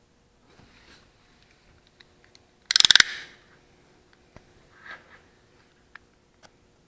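A short, loud rattle of rapid clicks about three seconds in, with scattered light knocks and taps around it.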